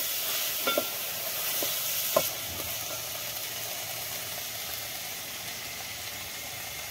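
Black chickpeas sizzling as they fry lightly in oil in an aluminium pot, with a steady hiss and a few short knocks from stirring in the first two seconds.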